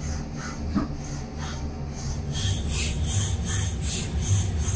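Brother Speedio W1000Xd2 machining center tapping M5 threads in aluminium under coolant spray. A steady low machine hum runs under short repeated rasping sounds, about three a second from about two seconds in, as it taps hole after hole.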